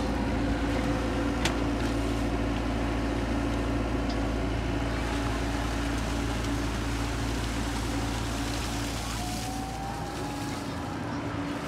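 Komatsu excavator's diesel engine running at a steady drone while the machine digs in a muddy ditch.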